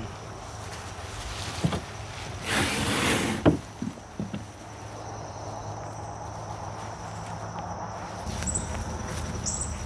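Insects trilling steadily on one high note. A few sharp knocks come through in the first four seconds, with a short rush of rustling noise about three seconds in.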